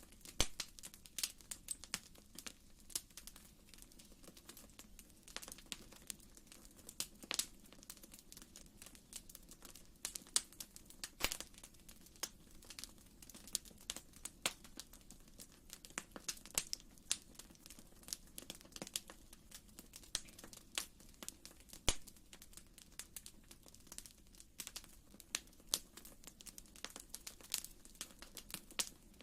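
Fireplace fire crackling: irregular sharp snaps and pops, several a second, over a low steady rumble.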